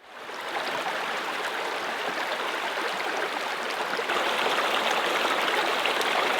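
Steady rush of running water from a stream or waterfall, fading in at the start and growing a little louder about four seconds in.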